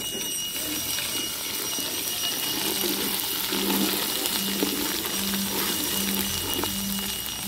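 A steady hiss with a thin high tone. From about three seconds in, a low beep repeats a little faster than once a second. A few light knocks come from a metal spoon stirring in an aluminium pot.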